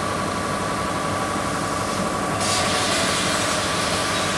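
Laser cutting machine running as its head cuts a plywood sheet: a steady machine hum and hiss with a thin constant whine, the hiss growing brighter about two and a half seconds in.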